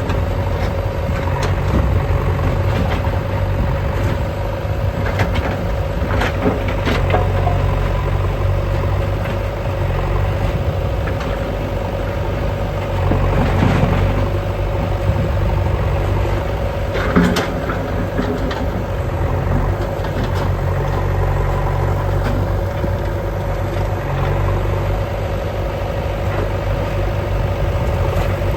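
JCB 3DX backhoe loader's diesel engine running steadily, with a constant whine over the rumble and occasional short knocks and clanks.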